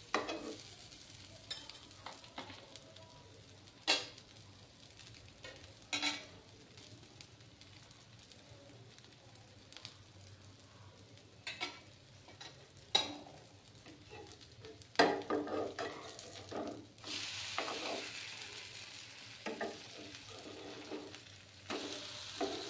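Potato pancakes frying in oil in a pan with a quiet, steady sizzle, broken by several sharp knocks and scrapes of a metal spatula against the pan as they are turned over. About three quarters of the way through the sizzle grows louder for a few seconds.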